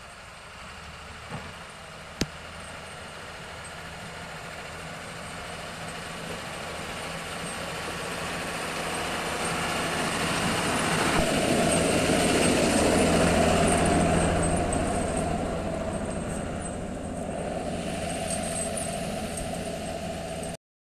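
Snowplough truck's engine running as it drives through snow, growing steadily louder to a peak about two-thirds of the way through, then easing off before the sound cuts off abruptly just before the end. A single sharp click about two seconds in.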